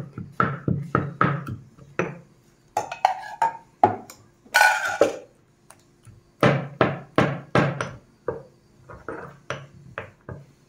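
Stone pestle pounding in a small stone mortar, crushing tomatoes and spices for a tomato pickle: runs of sharp knocks about three a second, broken by short pauses.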